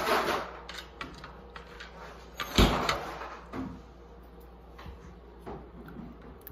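Household handling noises: one solid thump about two and a half seconds in, with lighter knocks, clicks and rustles before and after it, as snacks are got out and handed over.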